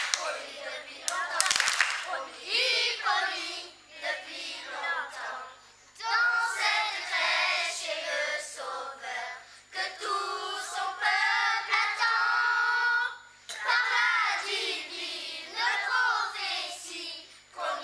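Children's choir singing in phrases, with a few hand claps in the first couple of seconds.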